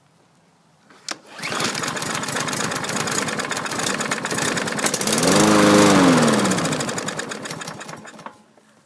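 Troy-Bilt TB200 mower's Briggs & Stratton 150cc single-cylinder engine firing on a shot of carburetor cleaner and running for about six seconds, speeding up and then winding down and dying out. It runs only on the cleaner because it is not getting fuel, a sign of a clogged carburetor.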